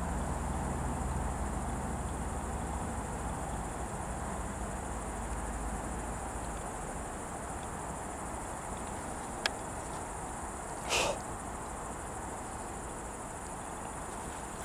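Crickets chirring in a steady, continuous high tone over a low rumble that fades over the first few seconds. A single click comes about nine and a half seconds in, and a short, sharper noise about a second and a half after it.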